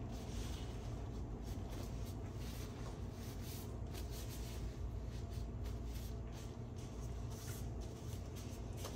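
Steady low room hum with faint, scattered light rustles and taps now and then.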